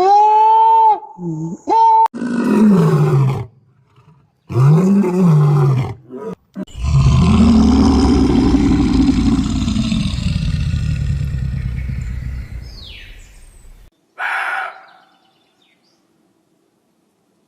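A run of separate animal calls, cut one after another: a few short pitched calls rising and falling in pitch, then a long, loud, low roar lasting about seven seconds, then one short call.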